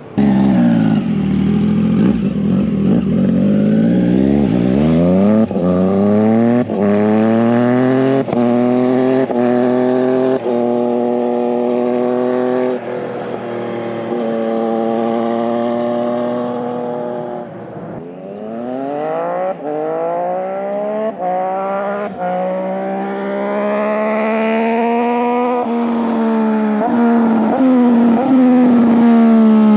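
Triumph Street Triple 765 RS three-cylinder engine through an SC Project full titanium exhaust, accelerating hard through the gears. The revs climb in repeated rising sweeps, each broken off by a quick upshift, with some stretches held at a steady pitch. It grows louder toward the end as the bike approaches.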